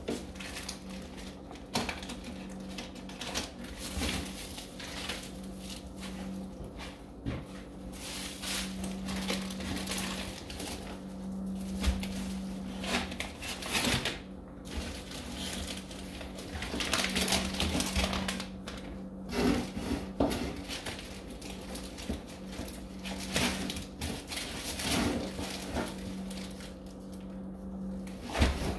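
Plastic bags and packaging rustling and crinkling as items are unwrapped and handled, with irregular crackles and small knocks throughout. A steady low hum runs underneath.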